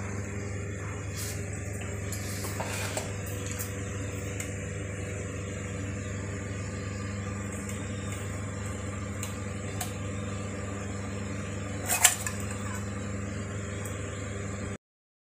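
Steady low hum with a few light clicks, and one sharp metallic clink about twelve seconds in as a stainless steel lunch box lid is handled. All sound cuts off just before the end.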